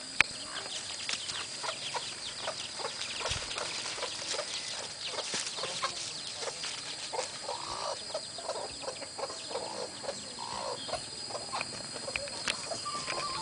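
Chicken clucking a few times around the middle, over a continuous crackle and rustle of dry leaf litter and brush being walked through, with a steady high tone behind.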